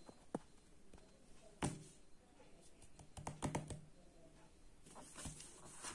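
A few quiet clicks and taps, with a quick run of several about three seconds in and a few more near the end.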